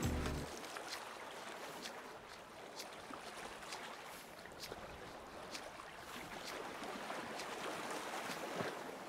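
Water lapping and trickling gently, with small splashes and drips ticking through it. Music stops about half a second in.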